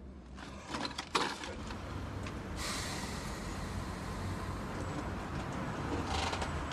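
A few knocks and clicks, then from about two and a half seconds in a steady rushing noise over a low hum.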